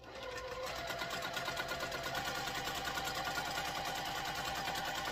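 Electric sewing machine stitching a straight seam through two layers of quilting cotton, its needle moving at a fast, even rhythm over a steady motor whine. It picks up speed in the first second and stops abruptly near the end.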